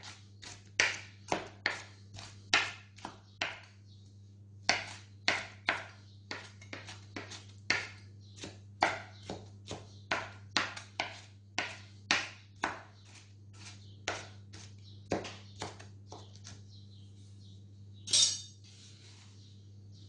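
Kitchen knife chopping a fresh tomato on a wooden cutting board: sharp knocks of the blade against the board, about two a second in irregular runs with short pauses. Near the end comes one louder, longer scraping sound. A steady low hum runs underneath.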